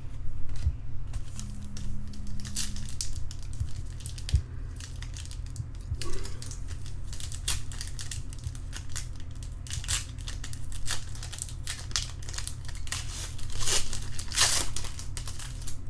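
Baseball card pack wrappers crinkling and tearing as packs are opened and handled, in irregular rustles and crackles that grow loudest near the end. A steady low hum runs underneath.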